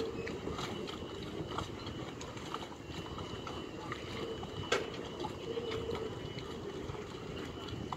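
Harbour quayside ambience: a steady low rumble with faint distant voices, scattered small clicks, and one sharp knock a little before five seconds in.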